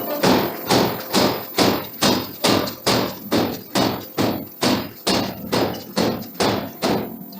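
Forging hammer striking a steel billet in a steady rhythm, about two blows a second, with the blows stopping shortly before the end.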